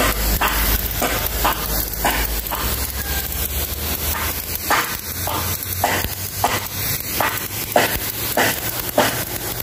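High-pressure water jet from a pressure washer nozzle hitting wet concrete: a steady hiss with brief surges every second or so as the spray moves over the surface.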